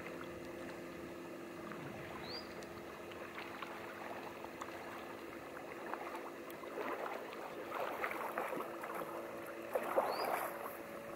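Kayak paddles dipping and splashing in calm water, the splashing busier about seven to ten seconds in, over a steady low hum.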